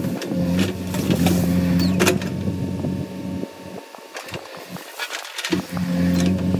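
JCB 3DX backhoe loader's diesel engine running, fading out for a couple of seconds in the middle and coming back about two thirds of the way in, with several sharp knocks over it.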